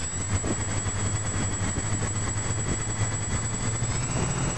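Multirotor drone's brushless motors and propellers spinning up at idle just after arming: a steady low hum with a thin high whine, rising slightly in pitch near the end as throttle comes up.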